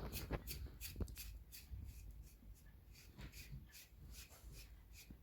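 A brush being drawn through a cat's fur in repeated soft, scratchy strokes, about three a second.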